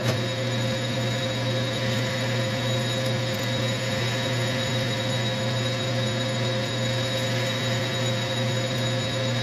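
Metal lathe running steadily while a diamond-point tool takes a facing cut on a small crank disc; an even low hum with a fainter steady high whine over a noisy hiss.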